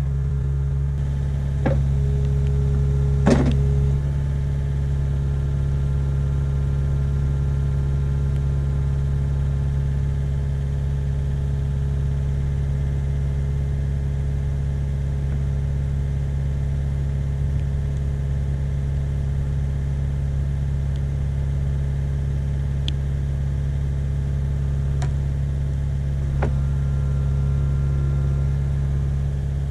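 Kubota KX057-5 mini excavator's four-cylinder diesel engine running steadily, with a few sharp knocks, the loudest about three seconds in.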